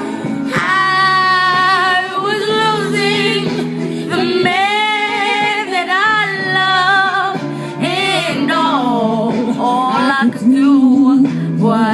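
Female voice singing a slow ballad in long, wavering held notes and wordless runs over steady sustained backing chords.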